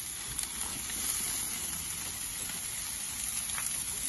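Chicken pieces and meat-and-vegetable skewers sizzling on a barbecue grill, a steady hiss, with a few clicks of metal tongs against the grill.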